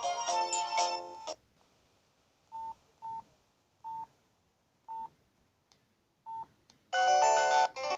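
Samsung SGH-P510 mobile phone: a polyphonic ringtone breaks off about a second in, followed by five short, evenly pitched keypad beeps spaced about a second apart. Near the end another ringtone starts loudly and stops again after under a second.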